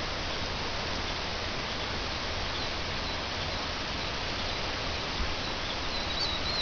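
The Brazos River running over shallow rocky riffles: a steady rushing of water. A few short high chirps come in near the end.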